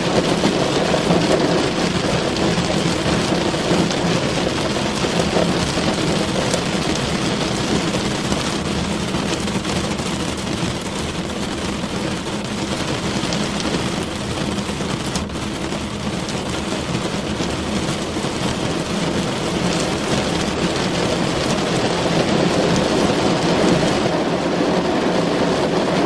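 Heavy rain drumming steadily on a car's roof and windows, heard from inside the cabin, with a deep rumbling undertone; it eases a little midway and builds again near the end.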